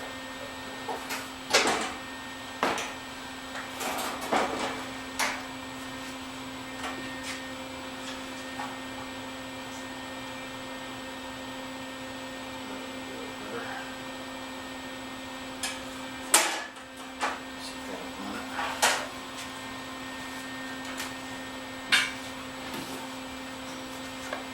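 Steady mains hum from a wire-feed welder, with scattered clicks and knocks of metal parts being handled while the too-tight wire feed is adjusted. The hum breaks off briefly after the loudest knock, about sixteen seconds in.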